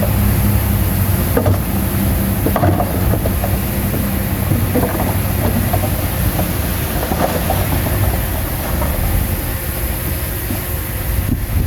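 Bulldozer's diesel engine running under load with a steady low hum, along with irregular metallic clanks and rattles. The engine hum eases after about five seconds.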